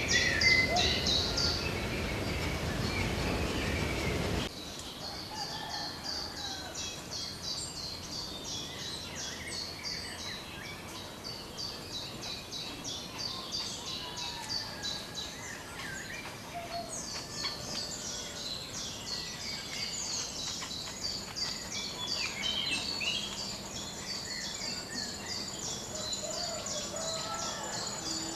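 Woodland ambience: dense, rhythmic high-pitched chirping repeating in long series. A louder hissing noise fills the first four seconds or so, then cuts off abruptly.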